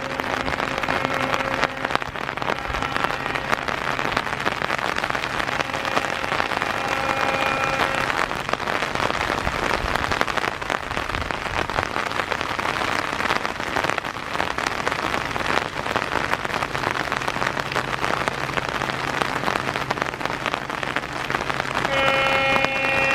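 Heavy monsoon rain pouring down, a dense steady patter of drops. A faint steady tone sounds in the first few seconds, and a louder steady chord of several pitches comes in near the end.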